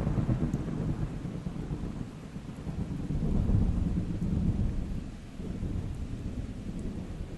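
Thunder rolling over steady rain: a low rumble that swells about halfway through and dies away toward the end.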